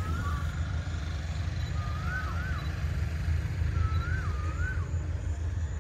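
Low, steady rumble of an approaching Hitachi diesel-electric locomotive running in the distance as its train comes into the station. A bird calls several times over it with short rising-and-falling chirps.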